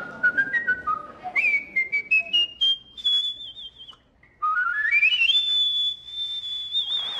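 A man whistling with pursed lips: a run of short notes climbing step by step to a high pitch, a brief break, then a quick rising run up to one long high note that ends in a warble.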